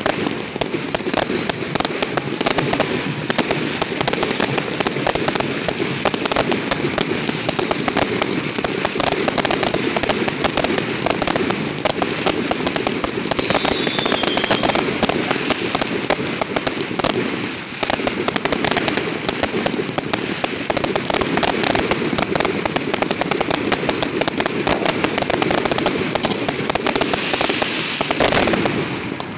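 Aerial fireworks going off in a dense, continuous barrage of bangs and crackling, with a short whistle falling in pitch about halfway through.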